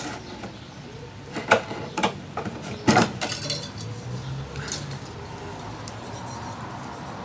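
Sharp clicks and knocks of small metal and plastic parts being handled, three distinct ones in the first three seconds and a lighter one later, as a pressure washer's old thermostat is worked out of its housing.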